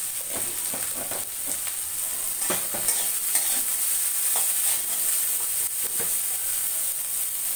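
Chopped vegetables sizzling in hot oil in a metal kadai, with a steady hiss throughout. A metal spatula stirs and scrapes against the pan in short, irregular strokes.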